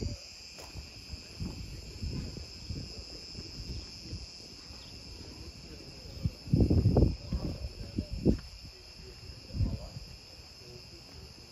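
A steady, high-pitched insect chorus. Dull low rumbles come and go under it, loudest about six to seven seconds in.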